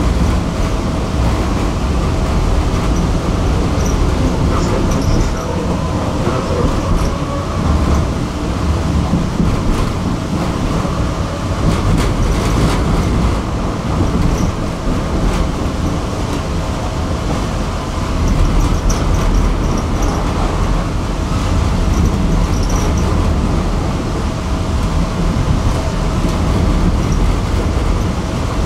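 A tram running along its line, heard from inside the car: a steady low rumble of wheels on the rails with a faint constant hum running through it.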